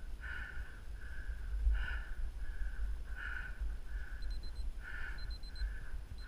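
A galloping horse breathing out in a steady rhythm, about two breaths a second in time with its strides, over a low wind rumble. Faint short high beeps come near the end.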